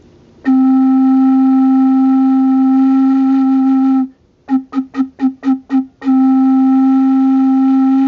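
Large home-made wooden organ pipe for a crank organ, blown by mouth and sounding its deep D: a long steady note, then seven quick short toots, then another long steady note.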